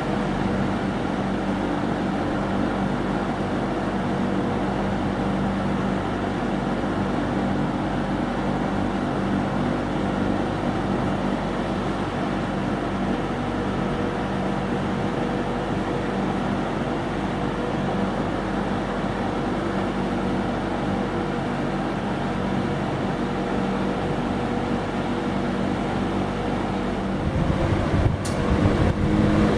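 Berns Air King PR20P 20-inch two-speed box fan running, a steady rush of air with a low motor hum. Near the end a click is heard and the airflow becomes louder and gustier.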